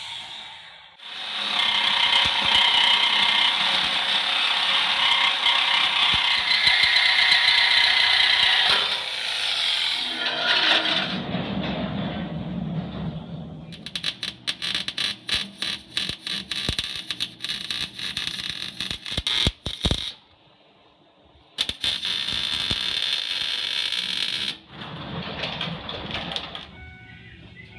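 Exhaust fabrication under a pickup: a power tool cutting steadily through exhaust pipe for several seconds, then an arc welder crackling on and off as the pipe is welded.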